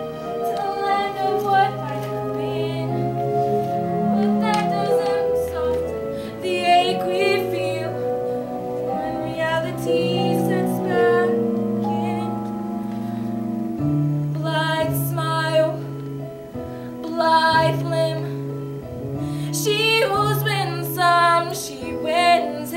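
Music: a woman singing held, wavering notes over an instrumental accompaniment.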